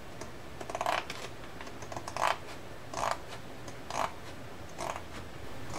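Large scissors snipping through a sheet of stiff 7-count plastic canvas, each cut a short crisp crunch, about five snips roughly a second apart.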